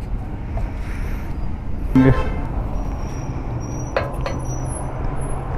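Steady hum of road traffic with a short vehicle horn toot about two seconds in, and two sharp clicks a little later.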